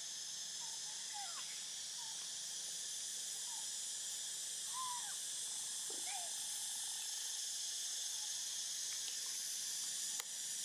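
Steady high-pitched insect drone, with scattered short faint chirps and a single click near the end.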